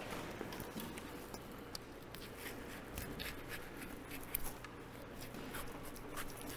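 Faint slicing and snipping of a knife working through a bison's thick, dry hide and hair, with scattered light clicks and one slightly louder one about four seconds in.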